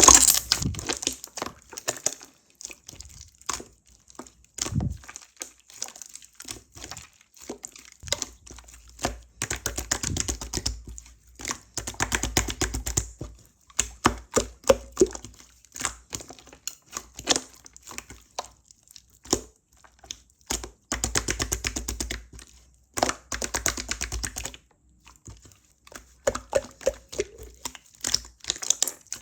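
Slime being squeezed and poked by hand, making crackling and popping sounds with many small sharp clicks. It comes in irregular bursts with brief pauses.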